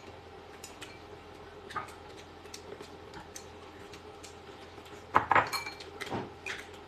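Chopsticks tapping and clinking against glass and ceramic bowls while eating: scattered light clicks, then a louder cluster of clinks about five seconds in.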